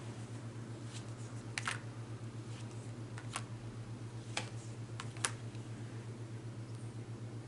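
A handful of light, sharp clicks at irregular intervals, about five in all with two close together just past the middle, over a steady low hum.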